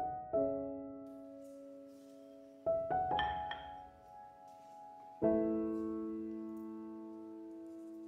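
Slow, gentle solo piano music: chords struck a few seconds apart and left to ring and fade.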